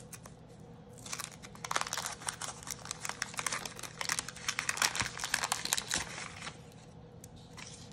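Waxed-paper wrapper of a 1987 Topps baseball card pack crinkling and tearing as it is peeled open by hand. It is a dense run of crackles that starts about a second in and stops about a second before the end.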